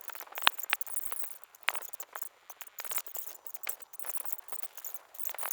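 Scattered light clicks and ticks, with a few sharper clicks, from hands handling small computer parts and packaging while a CPU is readied for its motherboard socket.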